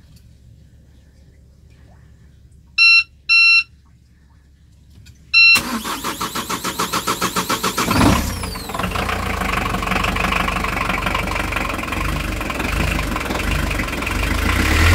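The engine control panel beeps twice, then with a third beep the starter cranks a brand-new Volvo Penta D2-50 four-cylinder marine diesel in rhythmic pulses, about five a second, for some two and a half seconds. The engine catches about eight seconds in and settles into a steady idle on its first start.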